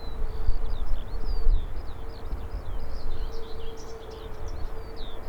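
Small birds chirping in quick, busy runs of short rising and falling notes. Underneath is a gusting low rumble and a steady low hum.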